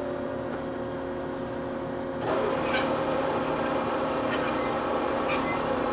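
Marvel 81A 11PC vertical band saw running through its automatic cycle: a steady hum with several fixed tones. About two seconds in, a louder, rougher running sound comes on and holds steady, with a few brief high squeaks over it.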